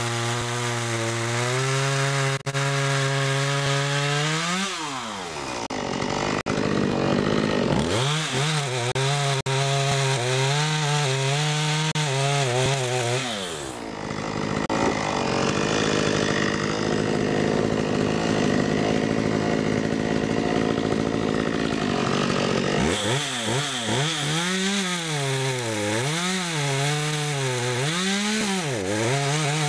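Stihl MS 192T limbing chainsaw's small two-stroke engine at high revs, cutting through a big oak log. Its pitch rises, wavers and dips as the chain loads up in the wood, with a long stretch of steady cutting noise in the middle.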